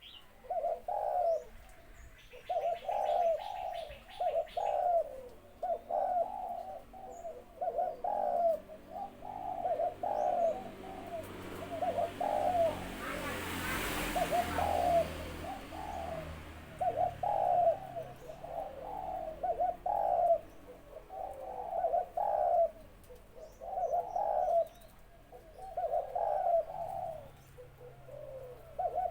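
A male Malay-line dove cooing in repeated phrases, about one every one to two seconds, in a small, clear voice. A rushing noise swells and fades about halfway through.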